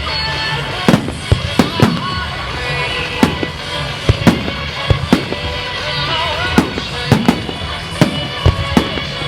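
Fireworks going off: a rapid, irregular run of sharp bangs, over music.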